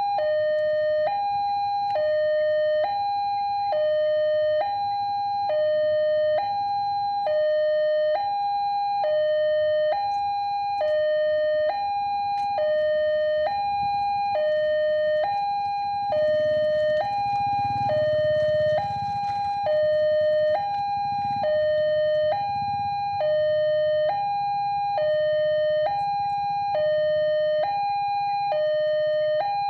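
Railway level-crossing warning alarm sounding a steady electronic two-tone hi-lo signal, switching pitch about once a second, the signal that a train is approaching while the barrier is down. A low rumble swells and fades about halfway through.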